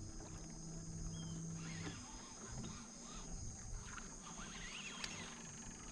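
Faint riverside forest ambience: a steady high insect drone with a few faint short chirps. A faint low hum runs through the first two seconds.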